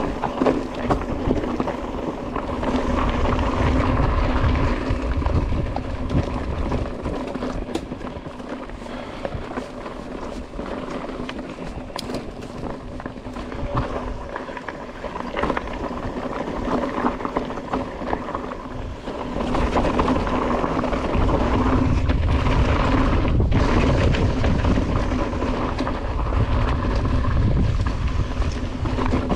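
Mountain bike descending a rough, rocky trail: continuous rattling and sharp clicks of the bike over rocks and roots, with a steady buzz throughout. Wind rumbles on the microphone, loudest for a few seconds early and again through the last third.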